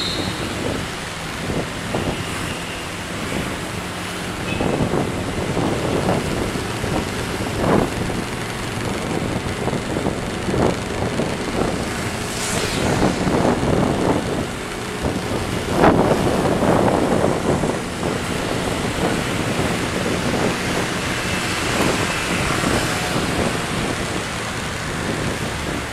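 Wind buffeting the microphone of a camera on a moving vehicle, surging in irregular gusts over steady road and traffic noise, with the strongest gust about 16 seconds in.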